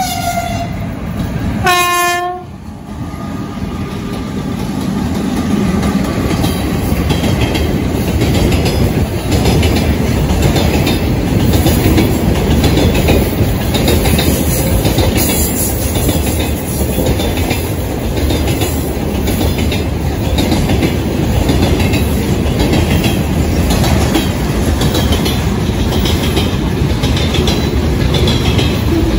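2ES10 'Granit' electric freight locomotive sounding its horn about two seconds in, after a short higher note at the start. Its freight train then passes close by, with a steady rumble and the clickety-clack of wheels over the rail joints.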